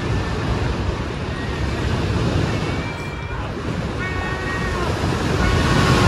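Sea waves washing and rumbling steadily, with seagulls calling over them: a short call a little before three seconds in, a longer, slightly falling call about four seconds in, and another starting near the end.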